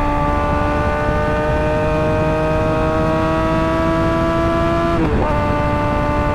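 Suzuki GSX-R 600 inline-four through an M4 GP slip-on exhaust, its revs climbing steadily under load, then dipping briefly about five seconds in as it shifts up a gear and pulls on.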